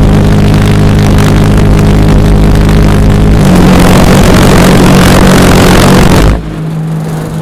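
Large pulse jet running at full power with a loud, steady pitched drone. Its pitch shifts slightly about three and a half seconds in, then it cuts off abruptly as the jet shuts down, leaving a quieter steady hum.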